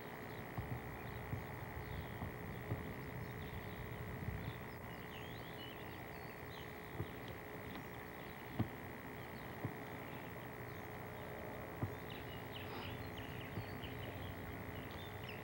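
Quiet outdoor ambience with many small, faint bird chirps and a steady faint hum underneath, broken by a few soft knocks.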